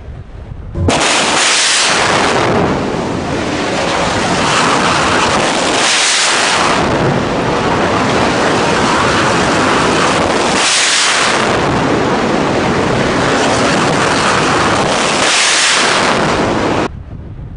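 Kalibr cruise missile launch heard up close from the firing ship: the rocket booster's loud rushing roar starts suddenly about a second in, swells about four times, and cuts off suddenly near the end.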